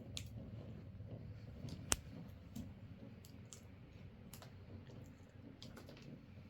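Scattered light clicks and taps at irregular intervals, one sharper click about two seconds in, over a faint low steady background.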